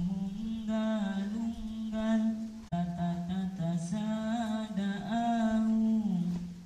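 A single voice chanting an Islamic recitation in long, wavering held notes over a loudspeaker. There are two long phrases with a short break about two and a half seconds in, and the voice trails off near the end.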